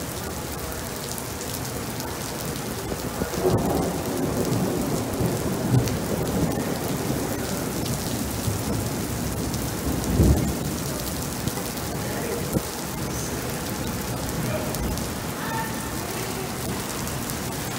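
Steady rain falling on pavement, with low rolling thunder rumbling from about three seconds in and a louder thunderclap about ten seconds in.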